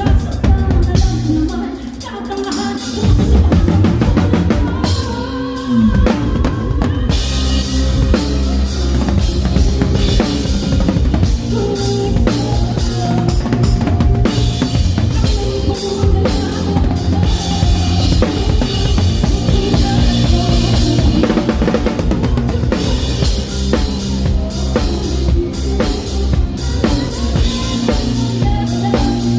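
A live band playing, led by a drum kit with bass drum and snare hits over sustained bass notes; the low end fills in about three seconds in.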